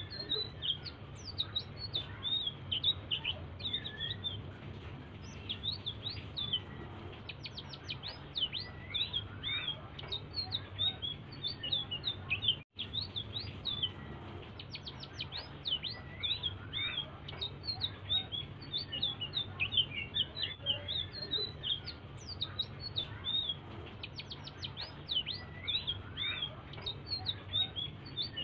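A small songbird of the kind Indonesian keepers call 'selendang biru', singing a soft, continuous chattering song of quick high chirps and short sweeping notes. The sound cuts out completely for a split second about halfway through.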